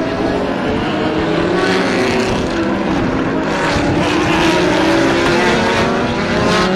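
Group C sports-prototype race cars running through a corner in a pack, several engines sounding at once. Their overlapping notes fall and rise in pitch as the cars slow for the bend and accelerate out of it.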